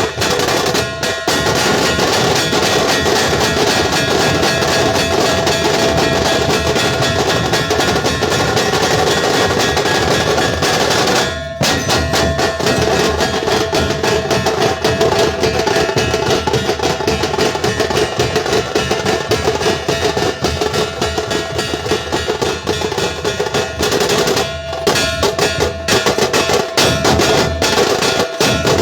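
A dhol-tasha troupe playing loudly: massed dhol barrel drums with fast, rolling tasha drums in a dense, continuous beat, broken by a few brief pauses.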